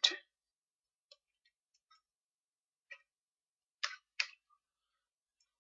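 A few isolated computer keyboard key clicks in near quiet: faint single clicks about one and three seconds in, then two louder ones in quick succession about four seconds in.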